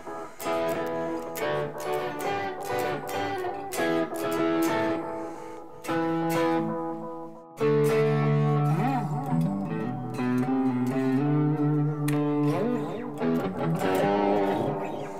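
Electric guitar played through a StewMac Tape Op Delay pedal, a tape-echo-style delay: picked notes and chords carry delay repeats. About halfway through, a louder, fuller chord comes in and is left ringing.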